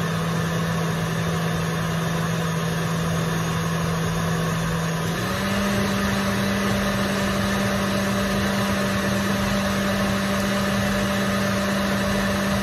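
KitchenAid stand mixer running on high with its whisk attachment beating heavy cream toward stiff peaks: a steady motor hum. About five seconds in, the motor's pitch steps up a little and then holds.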